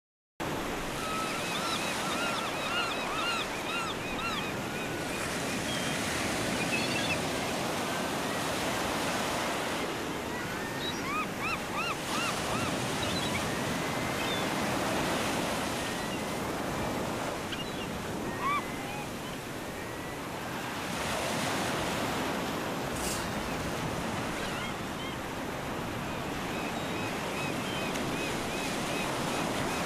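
Ocean surf washing steadily onto a sandy beach, with runs of short, repeated high calls from birds over it.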